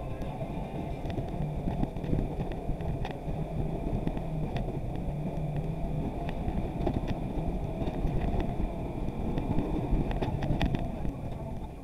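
Off-road buggy driving along, its engine running steadily under road noise, with scattered sharp clicks and knocks.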